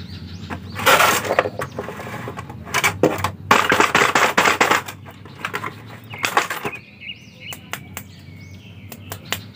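Thin clear plastic blister tray crinkling and crackling in several bursts as hands pull action figures out of it and press on it, followed by lighter clicks and taps near the end.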